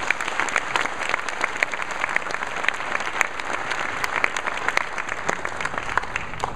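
Audience applauding: a dense, steady clatter of many people clapping.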